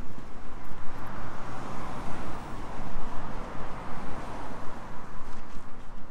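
A car passing by: tyre and engine noise swells over the first couple of seconds, peaks mid-way and fades away, over a steady low street rumble.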